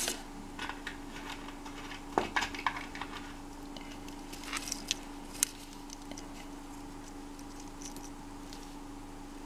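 Faint light clicks and clinks of costume jewellery being handled: gold-tone metal findings and faux pearl beads tapping against each other and the fingers, in a few clusters around two seconds in and again around five seconds in, over a steady faint hum.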